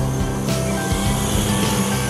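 Background music with a steady beat and a bass line.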